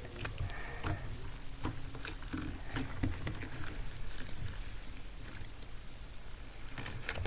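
Fingers pressing and folding a lump of stiff, not very stretchy slime on a wooden tabletop, making faint, irregular sticky clicks and small pops as it is worked to trap air bubbles. A steady low hum runs underneath.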